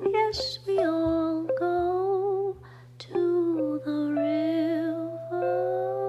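Background music: a female voice humming a slow wordless melody over a steady low drone, ending on a held note.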